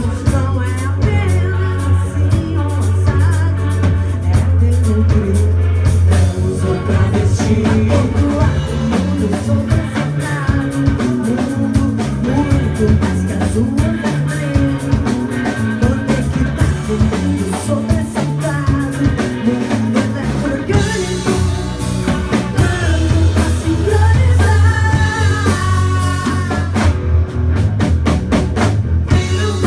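Live rock band playing a song: electric guitars, electric bass and drum kit, with voices singing.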